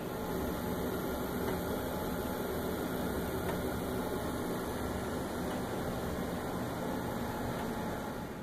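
Steady hum and hiss of lab test-equipment cooling fans and room ventilation.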